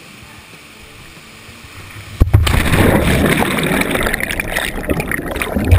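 Jumper plunging into a canyon pool: a sudden splash about two seconds in, then loud rushing and bubbling water as the camera goes under, with a heavy thump near the end.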